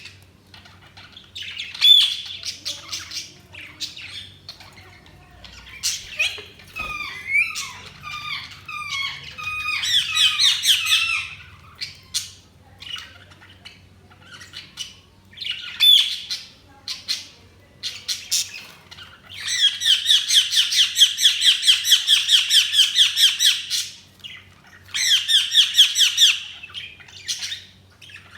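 Budgies chirping and chattering: sharp single chirps, a run of falling whistled notes, and long fast warbling chatter bursts about two-thirds of the way through and again near the end.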